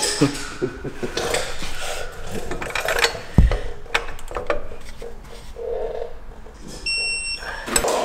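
Hand tools clicking and knocking against an aircraft engine while a new cylinder's hold-down nuts are torqued in steps, with one heavier knock about three and a half seconds in. A short electronic beep sounds near the end.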